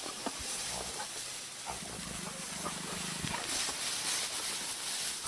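Spotted hyenas growling, with one low growl lasting about a second and a half near the middle and a few short, faint calls, over a steady hiss.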